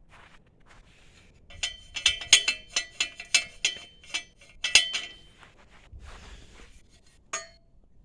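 A quick, irregular run of about a dozen sharp metal-on-metal strikes, each ringing briefly at a few clear pitches, then one more ringing strike near the end.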